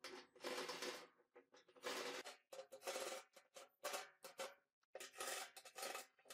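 Cordless drill with a socket bit whirring in short trigger bursts, about a dozen, with gaps between, as it drives the bolts that hold caster wheels to a steel drum.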